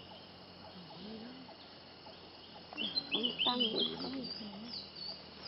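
Spectacled bulbul calling: a quick series of short, high chirping notes that starts a little before halfway and runs to near the end, over a faint hiss of background noise.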